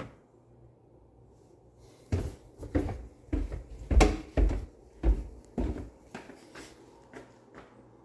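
Footsteps going down wooden stairs: a run of about eight heavy footfalls, roughly two a second, then fainter steps on a tile floor near the end.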